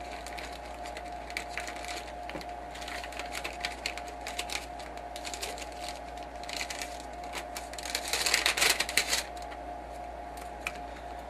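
Irregular light clicks and metallic ticks of guitar strings being handled and threaded while restringing an electric guitar, with a denser flurry of clicks about eight to nine seconds in, over a faint steady hum.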